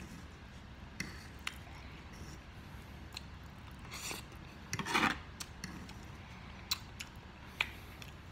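Close-miked eating: a metal fork scrapes and clicks against a wooden tabletop as cooked ramen noodles are scooped up. There are mouth noises from eating the noodles, louder around the middle.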